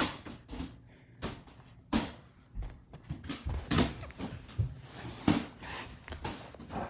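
A run of irregular thumps and knocks mixed with rustling of fabric, people moving about on a bed during a game of batting a balloon. The loudest knocks fall about four seconds in and again a second later.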